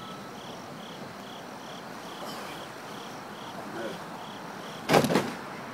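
Crickets chirping steadily, a little over two short high chirps a second, with a sudden loud thud about five seconds in.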